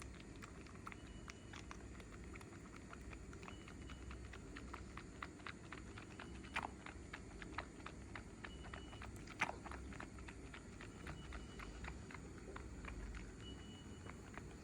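Kitten suckling milk from a feeding bottle's nipple: quick, irregular wet clicks and smacks, several a second, with two louder smacks partway through.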